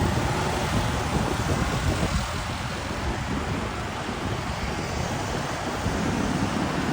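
Steady street traffic noise from passing cars.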